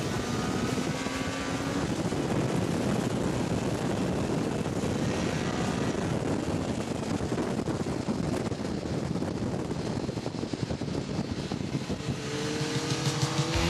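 Sport motorcycle running hard on a race track, heard from onboard: a dense, steady rush of wind and engine noise, with the engine pitch rising as it accelerates in the first couple of seconds and again near the end.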